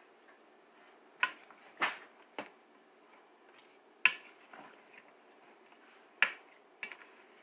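Wooden spoon knocking against the side of an enamel pot while stirring a thick stew mixture: about six sharp knocks at uneven intervals, the loudest about four and six seconds in.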